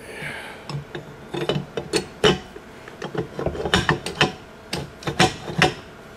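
Fixed scroll of a scroll compressor being set down over the orbiting scroll and worked into place by hand: irregular metal clinks, knocks and scraping as the two scrolls mesh, with several sharper knocks in the second half.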